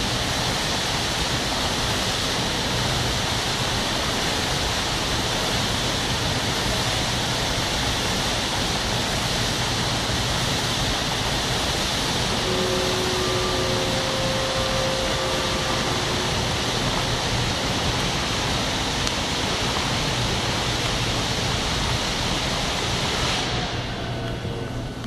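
Fountain jets splashing steadily into their basin, a dense even rush of falling water. It drops in level near the end.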